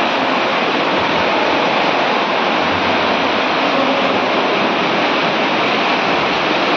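Steady rushing water noise in an indoor swimming pool from swimmers splashing as they swim freestyle.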